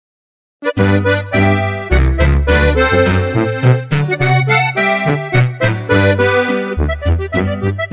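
Instrumental intro of a corrido: an accordion playing the melody over a steady, heavy bass line, starting abruptly a little under a second in.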